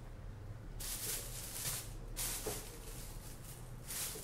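Close rustling and handling noise in a few hissy bursts of about a second each, the first starting about a second in.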